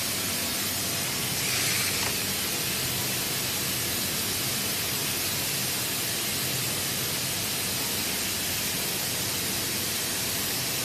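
Steady, even hiss from a running CNC flatbed cutter, with no cutting strokes and a brief louder swell about one and a half seconds in.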